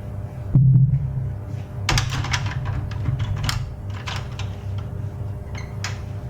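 A low thump, then a run of irregular clicks and knocks over a steady low hum, from an HP LaserJet 401 printer being handled or worked on.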